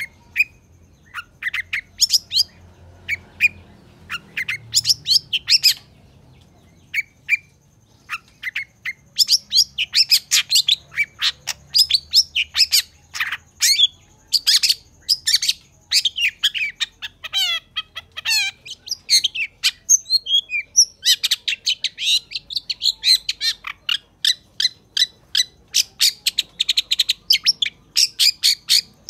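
Long-tailed shrike (cendet) singing loudly in a fast run of sharp chattering and whistled notes. The notes are sparse at first, become nearly continuous after several seconds, and include a string of quick falling slurs about two-thirds of the way through.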